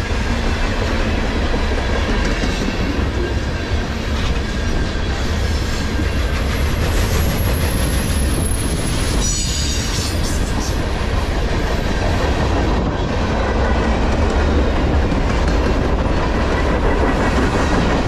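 Loaded-light freight cars of a manifest train rolling close past at about 38 mph: a steady, loud rumble of steel wheels on rail with scattered knocks. A high-pitched wheel squeal rises and fades between about seven and ten seconds in.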